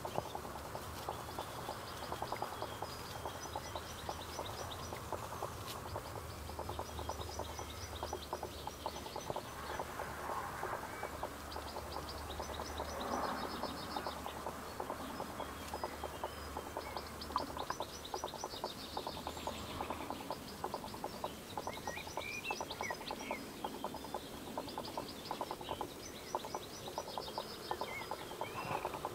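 Small songbirds singing, repeated short rapid trills every few seconds, over a steady crackling background noise.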